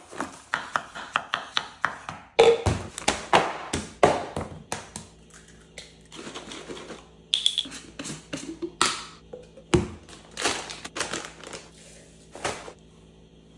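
Kitchen food-prep sounds: a quick run of taps and knocks on the counter and a wooden cutting board. Then fewer, separate knocks, including an egg cracked over a plastic blender cup and rolled oats poured into it. A faint steady hum runs underneath from about five seconds in.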